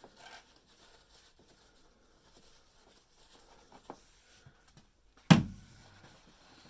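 Faint rubbing and handling as a cloth wipes down an appliance power cord, with a single sharp knock about five seconds in.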